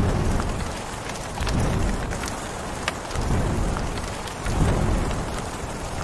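Steady rain falling, with scattered drop ticks and low thunder rumbles that swell about four times.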